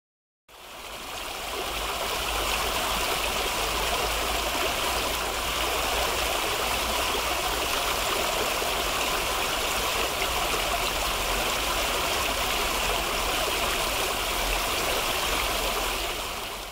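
Water jets of a fountain splashing steadily into a pool, fading in about half a second in.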